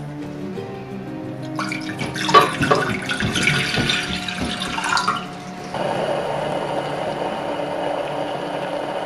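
Water being handled in the kitchen over soft background music: splashing and a few knocks from about a second and a half in, then a steady stream of running or pouring water from about six seconds in.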